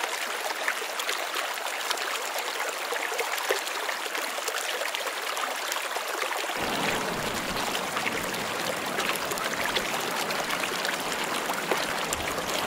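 Shallow, clear river running over stones and gravel, a steady rushing babble. About halfway through a deeper low rumble joins it.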